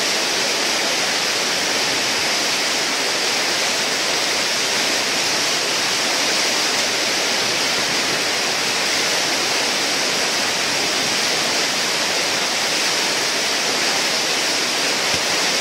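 Whitewater rushing steadily through a river hole, a continuous hiss with no breaks.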